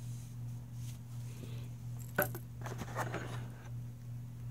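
Small plastic and metal accessory parts being handled: a sharp click about two seconds in, then a brief patter of small clicks and rustles, over a steady low hum.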